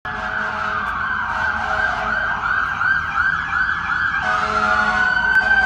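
Emergency vehicle sirens overlapping. A wail falls in pitch over the first two seconds while a rapid yelp repeats about three times a second. About four seconds in, a second siren starts a rising wail.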